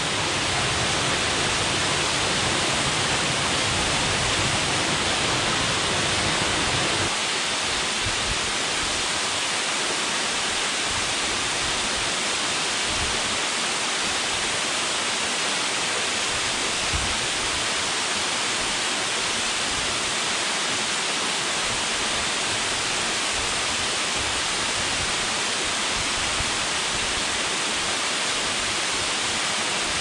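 Waterfall pouring into a rocky plunge pool: a steady rushing of falling water. About seven seconds in it switches to a second fall with less deep rumble.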